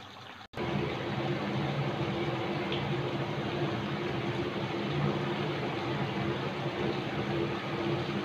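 Mutton sizzling and bubbling in oil and its own juices in a non-stick kadai over a gas flame, a steady hiss with a low hum underneath, as the meat is fried down (kosha) and gives off its water as steam. It starts abruptly about half a second in, after a quieter moment.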